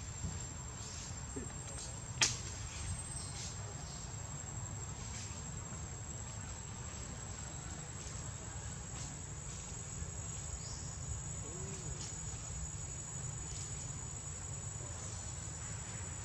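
Steady high-pitched insect drone from the forest, with a low rumble underneath and a few short sharp clicks, the loudest about two seconds in.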